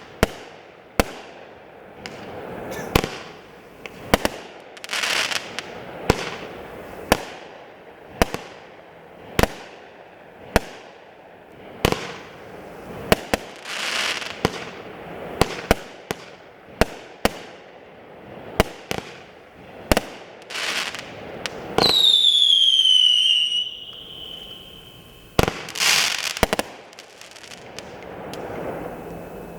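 A 28-shot, 500-gram consumer firework cake firing: a sharp launch shot about once a second, each shell bursting with a hiss of crackle. Near the end a loud whistle falls in pitch for about a second and a half, followed by a last few shots.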